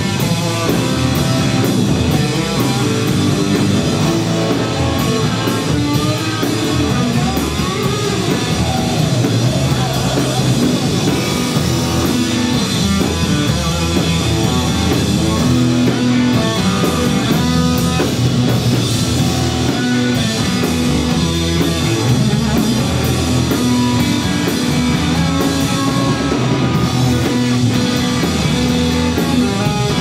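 Live rock band playing loud and steady: electric guitars and a drum kit.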